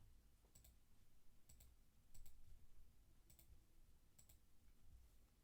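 Faint computer mouse clicks over near-silent room tone: about five quick double clicks, each a press and release, spread about a second apart.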